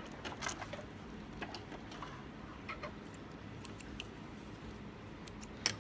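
Faint handling sounds as a sewn fabric piece is taken out from under a sewing machine's presser foot: soft rustling with a few light clicks scattered through.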